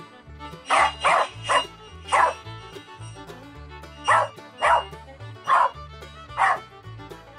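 Corgi barking eight times in two runs of four: a quick run about a second in, then four more spaced out from about four seconds in. Background music with a steady repeating bass line plays throughout.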